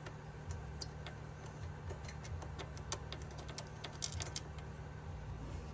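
Light, irregular metallic clicks and ticks of hand tools working the rear brake's bolts, over a low steady hum.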